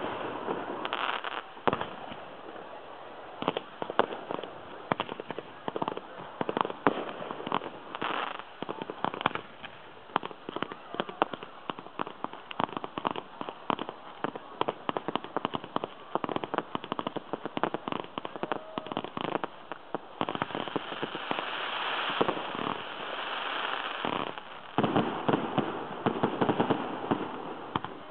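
Fireworks display: a rapid, irregular string of bangs and crackles from bursting shells. About two-thirds of the way through, a steadier rushing hiss swells for a few seconds beneath the pops.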